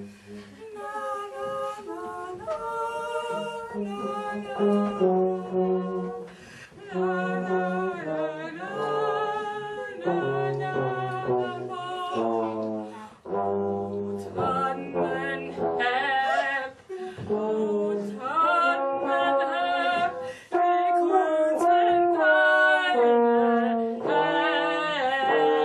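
A slow melody sung with a wide vibrato, in held notes, over a low part of long sustained notes.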